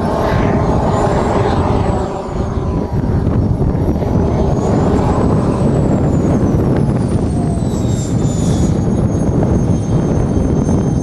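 Jetcat P120 model turbine engine running as the model jet taxis: a steady rushing roar with a high whine on top that rises and falls in pitch twice, then holds steady near the end.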